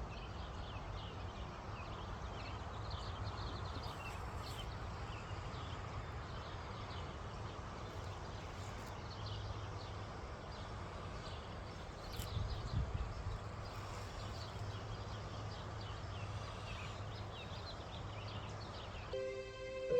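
Outdoor ambience: a steady low rumble with many faint, short high chirps scattered throughout. Music with steady held tones comes in near the end.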